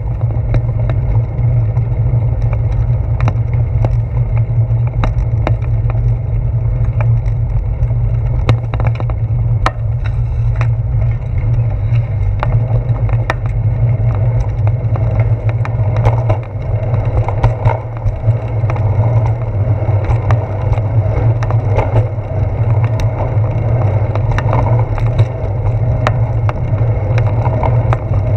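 Steady low rumble of road vibration and wind on a bicycle's handlebar-mounted GoPro while riding over concrete paths, with frequent sharp clicks and rattles from bumps in the surface.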